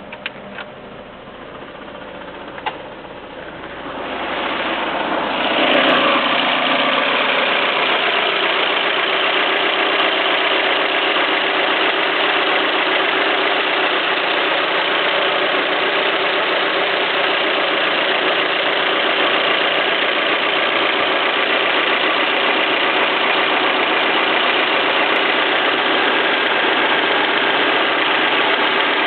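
Peugeot 307 1.6 16v petrol four-cylinder engine starting about four seconds in, with a brief flare of revs that falls away, then idling steadily. This is the engine the owner films for a strange clacking noise.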